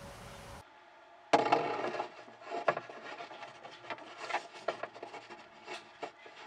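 Paintbrush scrubbing and dabbing epoxy resin into fibreglass cloth around the keel stem tube inside a model yacht's hollow plastic hull: a run of uneven scratchy rubbing strokes with sharp knocks, starting about a second in.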